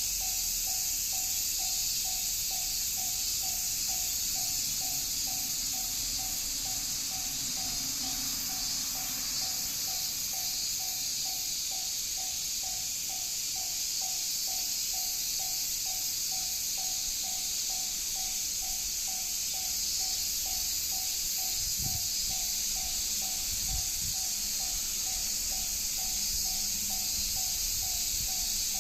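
Japanese level-crossing warning bell ringing steadily, one tone at about two strokes a second, the signal that a train is approaching the crossing.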